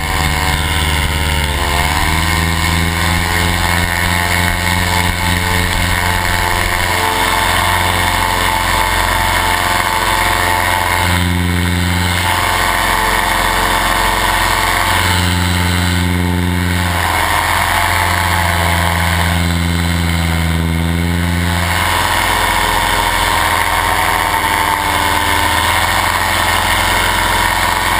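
Paramotor engine and propeller running loudly and steadily through a take-off and climb. The pitch dips briefly about two seconds in and shifts up and down a few times later on.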